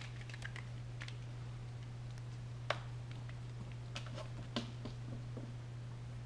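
Scattered light taps and clicks from kittens' paws and claws on a corrugated cardboard cat scratcher and the floor, over a steady low hum.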